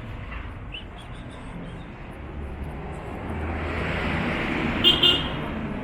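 Street traffic: a motor vehicle passing close by, its noise swelling and then fading. Two brief high-pitched squeaks come near the loudest point.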